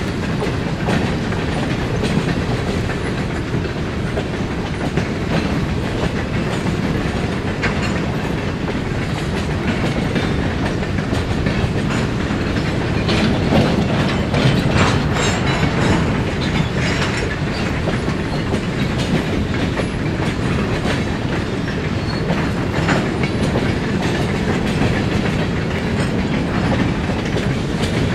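Freight train of boxcars rolling past, a steady rumble with the wheels clicking over rail joints, the clicks thickest a little past the middle.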